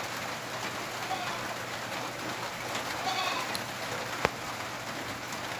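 Steady background hiss with no speech, and a single sharp click about four seconds in.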